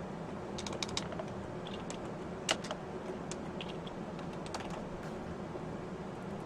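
Scattered light clicks and taps, a quick cluster near the start and one sharper click about two and a half seconds in, over a steady low hum.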